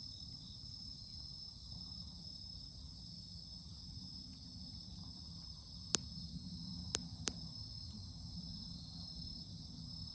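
Wood campfire giving three sharp pops, one about six seconds in and two close together about a second later, over a steady, high-pitched insect chorus.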